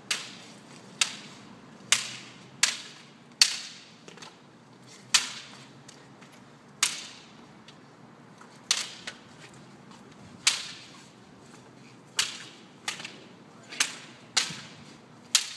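Sticks clacking against each other in a mock sword fight: about fifteen sharp cracks at irregular intervals, each with a short ringing tail.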